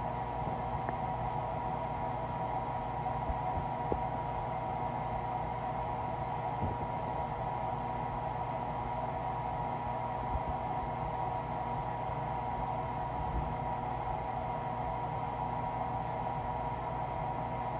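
Steady hiss with a constant hum-like tone and a few faint, soft clicks scattered through it; no clear stomach growl stands out.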